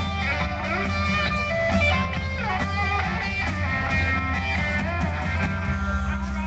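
Live band music led by guitar, with some bent notes, over a steady bass line.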